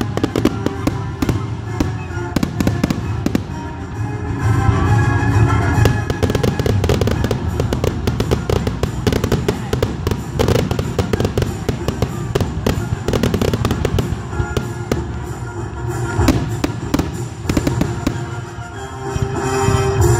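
Aerial firework shells of a grand finale bursting in a rapid, nearly continuous barrage of bangs and crackling, heaviest about four to six seconds in.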